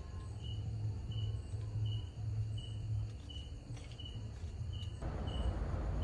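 Insect chirping: short high chirps at one pitch, evenly repeated about three times every two seconds, over a low hum. A rushing noise comes in near the end.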